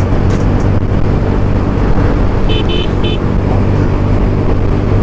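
Motorcycle engine running steadily while riding at speed, with wind and road noise on the helmet-mounted microphone. About two and a half seconds in come three short high beeps.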